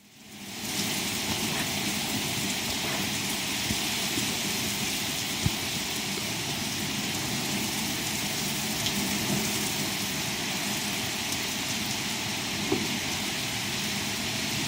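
Torrential rain pouring down steadily, a dense even hiss of water, with a few sharp taps of drops striking hard surfaces. It fades in over the first second.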